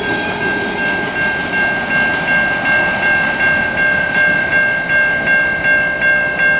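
Railroad grade-crossing bell ringing in steady, even strokes, about three a second. Under it, the wheel rumble of the last freight cars rolling away fades during the first second or so.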